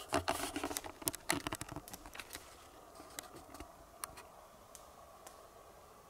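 A quick burst of dry crackling and rustling, like twigs and leaf litter being stepped through, for about two seconds, then a few scattered snaps.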